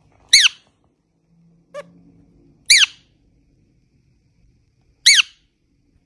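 Rose-ringed parakeet giving three short, high squeaky calls, each sliding down in pitch, about two and a half seconds apart, with one softer short call between the first two.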